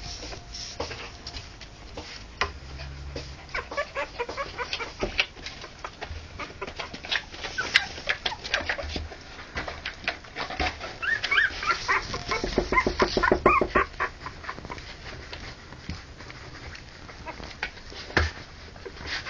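Three-week-old harlequin poodle puppies whining and yipping with short, high calls that come thickest past the middle, including a quick run of yips. Scattered small clicks and pattering run through.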